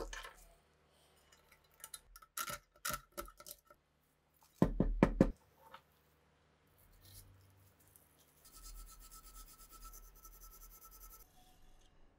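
Metal parts and tools knocked and set down on a workbench, with a loud clatter about five seconds in, then a brass bore brush scrubbing rust from inside a rusted rifle barrel stub: a rapid, even scratching for about three seconds.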